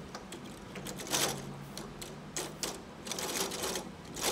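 Plastic toy gears on a play board clattering and clicking as they are handled and pressed on, in several short bursts.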